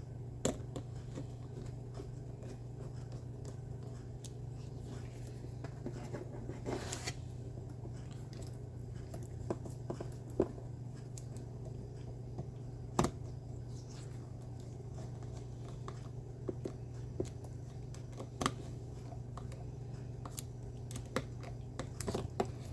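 Tiny screws and a plastic CPU-cooler mounting plate being handled and fitted by hand: scattered light clicks and scrapes with a few sharper taps, over a steady low hum.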